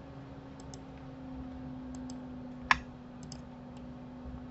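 Computer mouse button clicking a few times, mostly in quick press-and-release pairs, with one sharper click near the middle, over a steady low hum.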